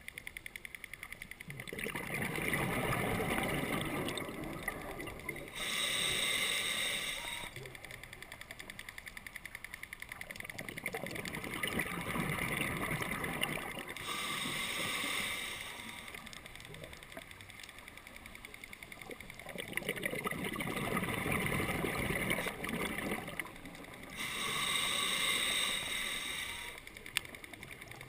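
Scuba diver breathing through a regulator underwater: three slow breaths, each a long bubbling exhale followed by a shorter hissing inhale.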